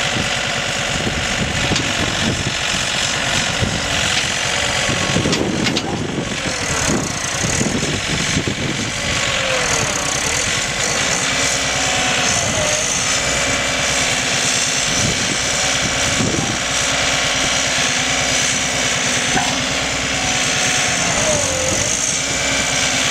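John Deere 3520 compact tractor's diesel engine running steadily while the stuck four-wheel-drive tractor is worked on boards laid across a trench.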